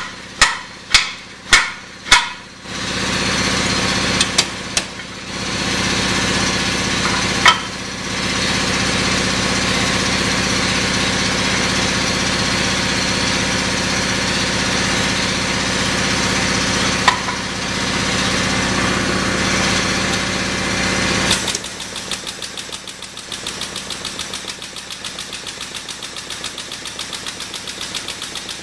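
Several sharp metal knocks in quick succession, then a motor running steadily with an even hum as the hydraulic broaching press works. About three-quarters of the way through, the running drops off into a quieter, fast, regular ticking.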